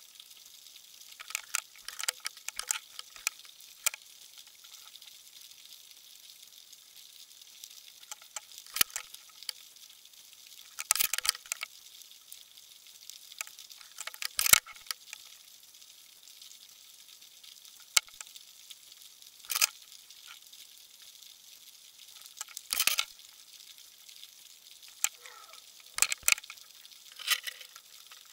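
Irregular sharp clicks and crackles picked up underwater, mostly high-pitched, over a faint hiss, with several louder clusters of clicks through the stretch.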